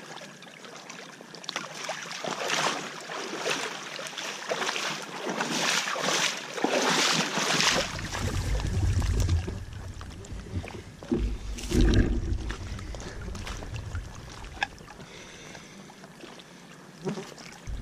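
Lake water splashing and swishing as gutted brook trout are rinsed by hand in the shallows, in repeated surges through the first half. From about halfway, a low rumble of wind buffets the microphone, with one sharper splash near the middle.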